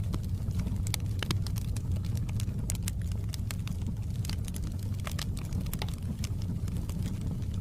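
Wood fire crackling, with irregular sharp pops and snaps over a steady low rumble of the burning fire.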